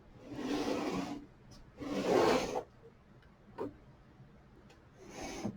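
Hardware being handled: rough rubbing and sliding scrapes, the loudest about two seconds in, with a single short click a little past halfway and another scrape near the end.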